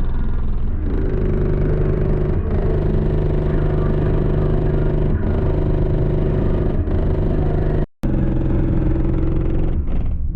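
Music played loud through a car audio system, with deep, sustained bass notes from a single Resilient Sound Platinum 15-inch subwoofer on a 3,500-watt DC Audio amplifier. The sound cuts out for a moment about eight seconds in.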